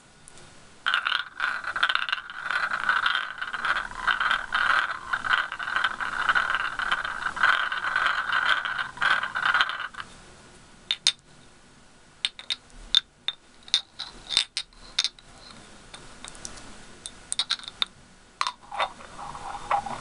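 Two glass jar candles rubbed and twisted against each other, making a dense, continuous scraping of glass on glass. After about ten seconds this gives way to scattered light clinks and taps of glass on glass.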